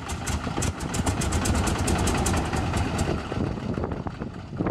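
CAC Wirraway's nine-cylinder Pratt & Whitney R-1340 Wasp radial engine turning over and firing unevenly on a start attempt, with irregular popping over a low rumble. It picks up about a second in and fades after about three seconds without catching.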